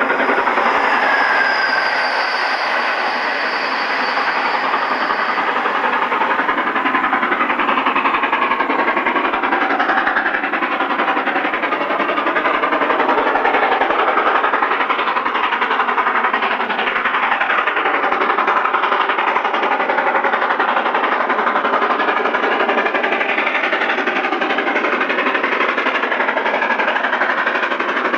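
LMS Stanier Class 8F two-cylinder 2-8-0 steam locomotive working hard up a gradient under load, its chimney exhaust blasting loudly and continuously along with the running of its train.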